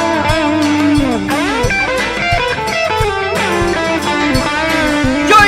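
Live worship band playing an instrumental break: an electric guitar lead with notes that bend and slide, over bass and steady drum beats.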